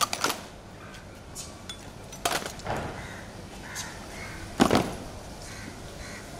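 A guard of honour's rifles going through drill movements: a few sharp slaps and clicks of hands and metal on the rifles, the loudest a little after the middle.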